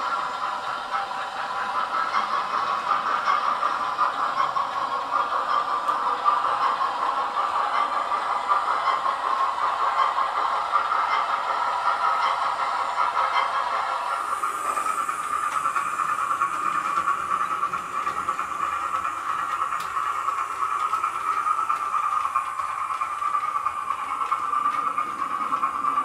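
OO gauge model trains running on the layout's track: a steady whirring rattle of motors and wheels on the rails, whose higher hiss drops away about fourteen seconds in.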